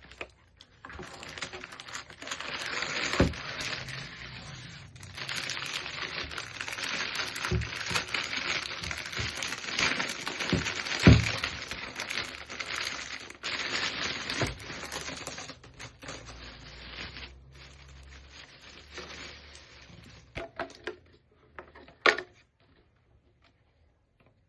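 Plastic packaging crinkling and rustling as a parcel is unwrapped, with a few sharp knocks, the loudest about halfway through. The crinkling stops near the end, leaving a handful of light clicks and taps.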